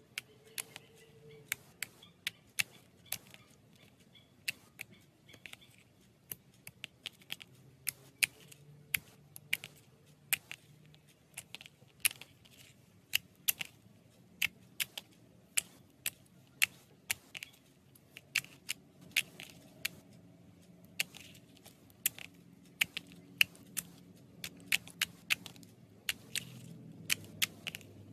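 Slime being squeezed and stretched by hand, giving a steady run of sharp, irregular clicking pops, several a second.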